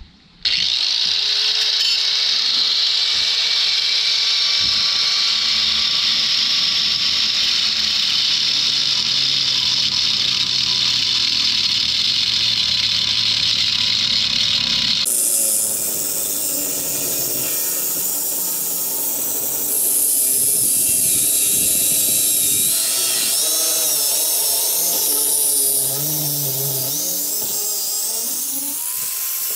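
Handheld angle grinder with a cut-off wheel spinning up about half a second in, then running steadily as it cuts into a metal davit tube. The sound changes about halfway through, and near the end the motor's whine rises again.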